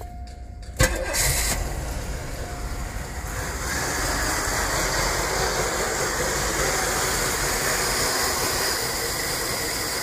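A Cadillac DeVille's 4.9-litre V8 starts with a sudden burst about a second in, then runs steadily, getting a little louder after about three and a half seconds. The mechanic takes it for a lean, fuel-starved engine, and fuel flow reads low.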